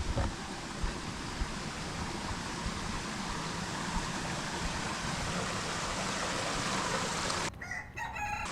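Steady rush of a rocky mountain stream, with a few soft low bumps at the start; the water sound cuts off suddenly near the end.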